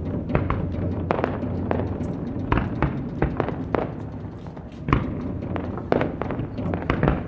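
Irregular sharp pops and thuds of firework bursts mixed with live Japanese taiko drumming, over a steady low rumble.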